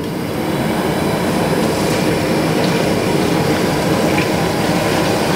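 Water at a rolling boil in a wok over a gas burner, a steady bubbling rumble.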